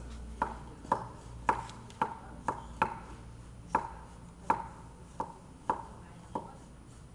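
Kitchen knife chopping food on a wooden cutting board: about eleven separate knocks of the blade on the board, roughly two a second, stopping shortly before the end.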